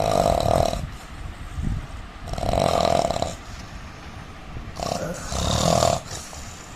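A man snoring, three snores about two and a half seconds apart with quieter breathing between them.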